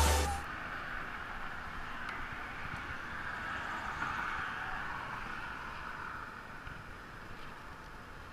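Electronic background music cuts off just after the start, leaving a faint, steady outdoor rushing noise that swells a little midway and then fades.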